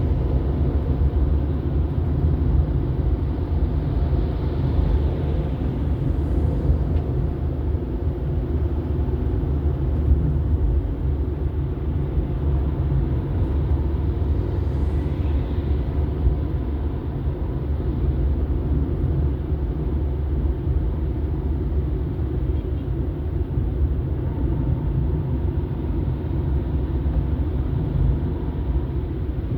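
Moving car: steady low rumble of engine and road noise, without let-up.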